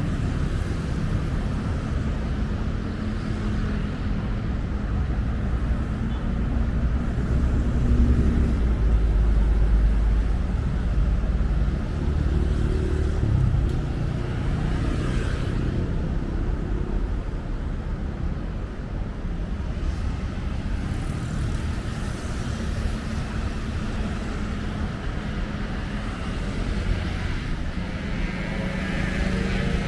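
Steady city road traffic: engines and tyres of passing vehicles. The low rumble swells loudest about eight to eleven seconds in, and a pitched engine note rises near the end.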